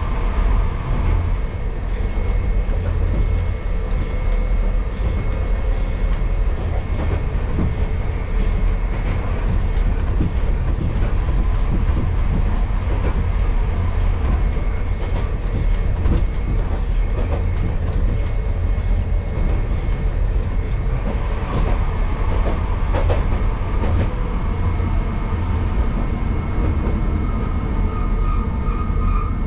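Hankai Tramway streetcar running along its track, heard from inside the car: a steady low rumble of wheels on rail with repeated clicks from the rail joints.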